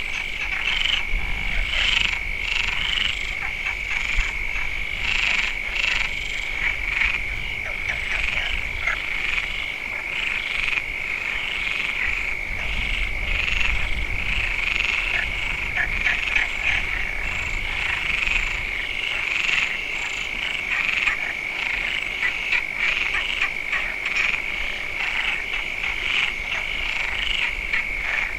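Chorus of many frogs calling at once: a steady, continuous high trill with many short overlapping croaks layered over it, unbroken throughout.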